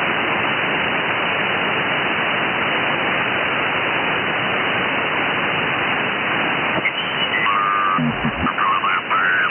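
Steady receiver hiss from an Icom IC-705 in upper-sideband mode, tuned across the QO-100 satellite's narrowband transponder. Near the end, short wavering whistles and a garbled low snatch break through the hiss as the tuning passes detuned sideband signals.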